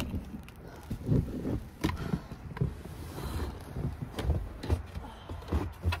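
Snow shoveling close to the microphone: irregular low thuds and scrapes of a shovel working snow, with footsteps and a low rumble of wind on the mic.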